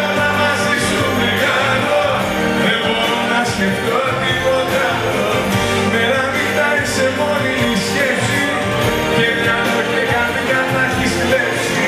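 Live band playing a Greek popular song, with electric guitar and drums under a male voice singing through the microphone.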